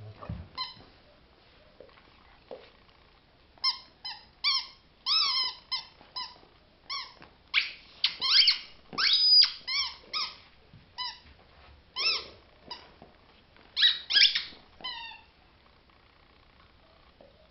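Rottweiler chewing a squeaker ball, squeezing out squeak after squeak in quick, irregular runs whose pitch slides up and down; the squeaking starts a few seconds in and stops a couple of seconds before the end.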